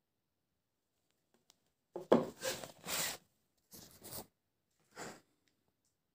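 Handling noise from a plastic-wrapped knife being moved on a wooden table: three short bouts of rustling and scraping, the first the loudest, beginning with a sharp knock.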